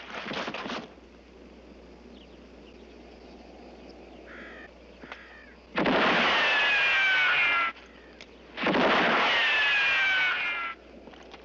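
Two gunshots from a western film soundtrack, each followed by a long ricochet whine falling in pitch, about three seconds apart. The tail of an earlier shot ends just after the start, and a faint bird call comes in the quiet before the first shot.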